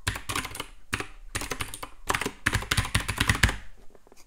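Typing on a computer keyboard: quick runs of keystrokes with short pauses between them, stopping shortly before the end.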